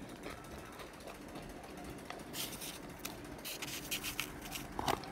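A hand rummaging among hard, chalky chunks of cornstarch in a box: after a couple of quiet seconds, a run of short scrapes, rustles and clicks as pieces are handled, the loudest click just before the end.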